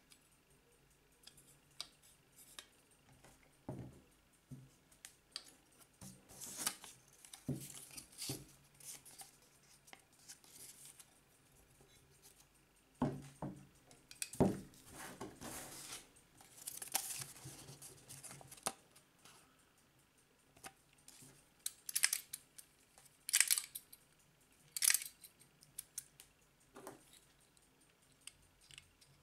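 Metal parts of a Soviet ship's clock movement being handled with fingers and small tools: irregular light clicks, taps and scrapes, with a cluster of louder scratchy strokes in the middle and again near the end.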